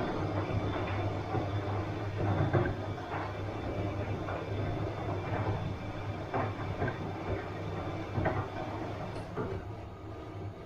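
Bosch washing machine running: a steady low hum with irregular soft knocks as the load tumbles in the drum, easing slightly near the end.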